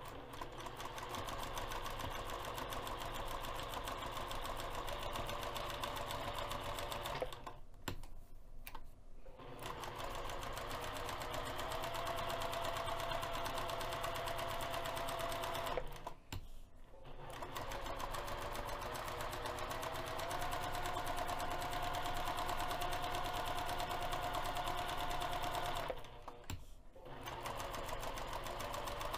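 Electric sewing machine stitching a long 4 mm basting stitch along the edge of quilted fabric and foam interfacing. It runs in stretches and stops briefly three times, about 8, 16 and 26 seconds in.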